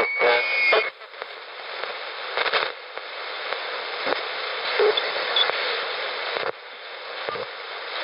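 Malahit DSP shortwave receiver's speaker output in AM mode. A steady whistle from the 3 MHz signal cuts off about a second in, and then an even static hiss follows as the receiver is tuned through the 1.6–1.8 MHz band. A few short clicks and brief faint tones pass as the dial moves.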